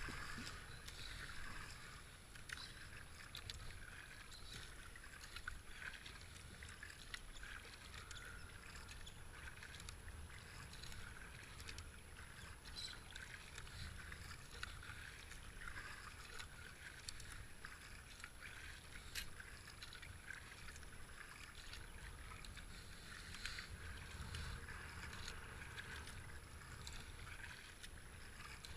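Double-bladed kayak paddle strokes dipping in and pulling through flat river water, with water running off the blades and along the kayak's hull. A low wind rumble sits underneath, with scattered small splashes and ticks.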